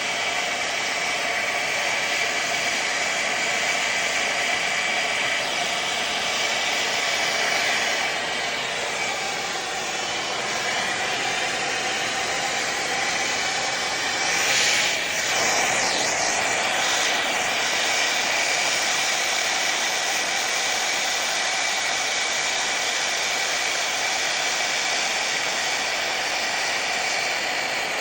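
Air-acetylene torch with a large A32 tip burning with a steady rushing hiss, heating a 3-inch copper pipe joint for brazing.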